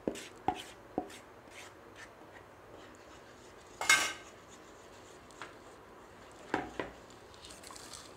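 Wooden spatula tapping and scraping against a non-stick kadai as thick besan-and-ghee batter is stirred into sugar syrup for ghee Mysore pak. There are three light taps in the first second, a louder stroke about four seconds in and another a little before the end.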